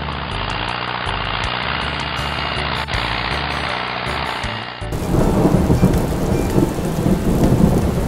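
Background music with a steady beat, replaced suddenly about five seconds in by a thunderstorm sound effect: a loud rumble of thunder over heavy rain.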